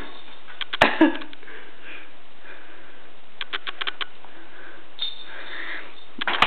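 Light clicks, taps and rustling from a kitten batting at and grabbing a feather wand toy, over a steady hiss. The clicks come in a quick cluster of about half a dozen around three and a half seconds in.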